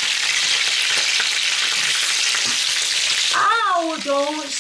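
Pork sausages and bacon sizzling in hot oil in a frying pan as a fork turns them, the oil spitting; a steady hiss. Near the end a voice cries out "ow" as the oil spits.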